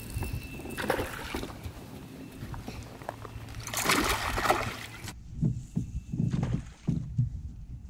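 Hooked bass thrashing and splashing at the water's surface beside a boat. The biggest splash comes about four seconds in, with a smaller one about a second in. A few dull low thumps follow.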